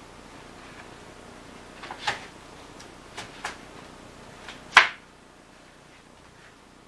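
A handful of sharp clicks and knocks from Genie Canvas frame parts being handled and fitted together, the loudest about five seconds in.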